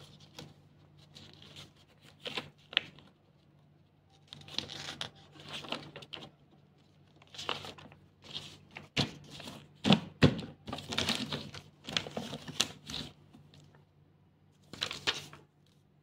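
Paper rustling in short irregular bursts as printed manuals and leaflets are handled and their pages turned, with two sharp knocks near the middle.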